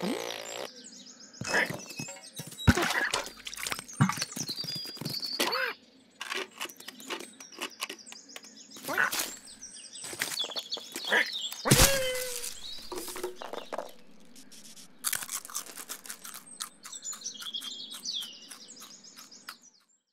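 Cartoon sound effects: a small bird tweeting amid quick scrabbling, knocks and a few short squeaks. The sound stops just before the end.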